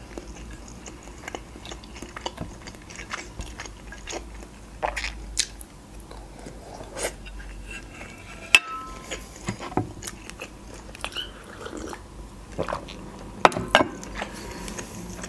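Close-miked chewing and mouth sounds of someone eating macaroni with minced meat, with scattered clicks of a metal fork scraping and tapping a white plate. A few louder clicks come near the end.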